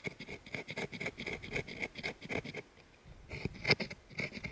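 Spine of a knife blade scraped rapidly back and forth along wood, about four strokes a second, rasping off fine shavings and wood dust. There is a brief pause a little under three seconds in before the strokes resume.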